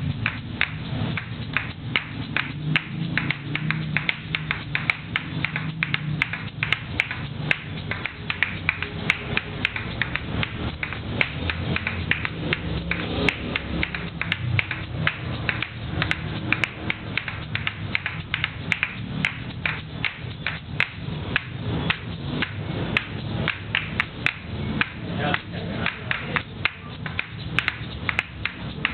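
An asalato (patica), the pair of seed-filled shells joined by a cord, played fast: the shells clack together in a quick, steady rhythm of sharp clicks with their seeds rattling.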